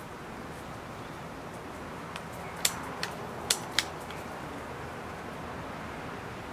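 A faint click, then four sharp clicks in quick succession over about a second, heard over a steady outdoor hiss.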